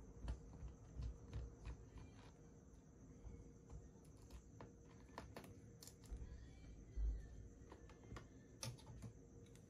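Faint scattered clicks and a few soft low thumps at an uneven pace, the loudest thump about seven seconds in.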